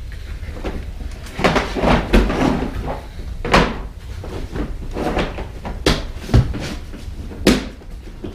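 Freshly lit wood fire in a wood-burning stove crackling as it catches, with several sharp cracks and knocks a second or two apart.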